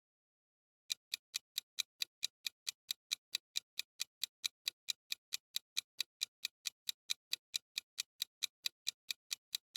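Quiz countdown timer sound effect: a clock-like tick repeating evenly, roughly four times a second, starting about a second in.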